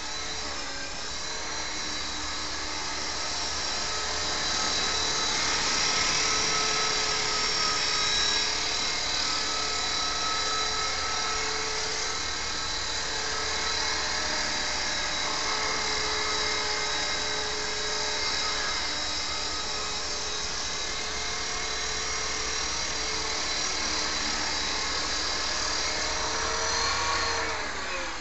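Radio-controlled helicopter hovering and flying, its motor and rotor making a steady high whine that wavers a little in pitch. Near the end the pitch falls steeply as the helicopter tips over onto the grass and the rotor slows.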